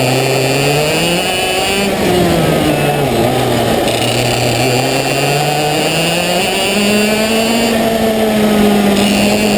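Parilla Leopard 125cc two-stroke kart engine at racing speed, heard onboard: its pitch climbs, falls away about two seconds in as the driver lifts for a corner, then climbs steadily again from about four seconds and holds high near the end.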